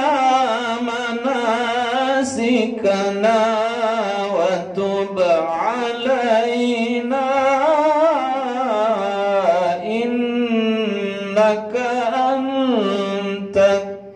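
A man reciting the Qur'an in the melodic, ornamented tilawah style, holding long wavering notes in one continuous phrase, with a short breath near the end.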